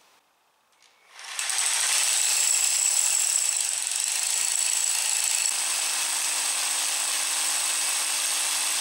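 SDS Max rotary hammer drilling a 3/4-inch anchor hole into a concrete slab. It starts about a second in and runs steadily, with a thin high tone over the hammering noise.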